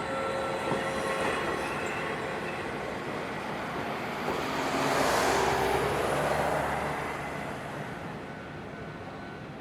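A Wakayama Electric Railway Kishigawa Line train passing over a level crossing. The rumble of its wheels on the rails builds to its loudest about five seconds in, then fades.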